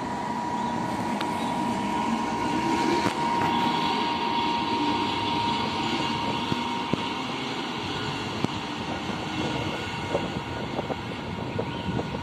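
Train running past on the rails: a steady rolling noise with a thin high whine through the first half, then sharp wheel clicks over the rail joints from about halfway through.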